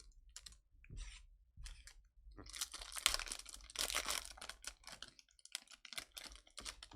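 Foil wrapper of a Bowman Chrome baseball card pack being torn open and crinkled, with the cards clicking as they are handled. It comes as a run of short crackles and clicks, busiest in the middle.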